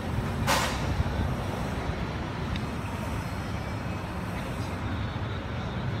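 Steady low rumble of street traffic, with a short hiss of released air about half a second in, like a bus or truck air brake.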